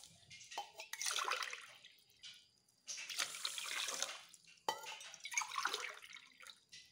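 Water poured from a steel tumbler into a steel pot of sugar, splashing in three pours with short gaps between them, as the water for boondi laddoo sugar syrup goes in.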